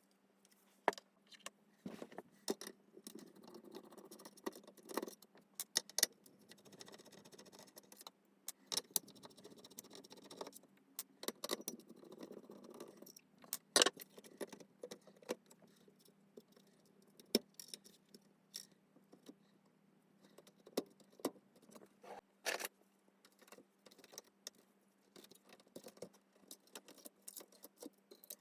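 Light, irregular clicks and clinks of small hard parts being handled while a VHS/DVD recorder is worked on, with the loudest knock about halfway through, over a faint steady hum.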